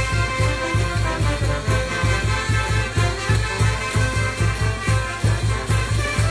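Andean brass band music played by a large banda, with horns carrying the tune over a steady, driving bass-drum beat.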